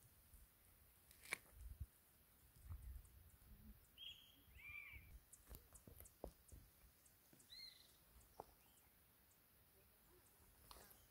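Near silence with a few faint bird chirps, a short cluster about four to five seconds in and another near eight seconds, over scattered faint clicks and soft low thumps.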